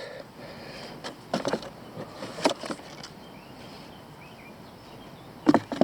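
Scattered rustles and knocks of a cardboard box and paper brochures being handled, a few sharper ones about a second and a half in, at two and a half seconds, and near the end. Faint bird chirps in the background.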